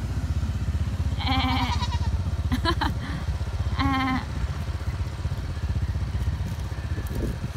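Goats bleating three times, short wavering calls about a second apart in the first half, over the steady low rumble of an engine running.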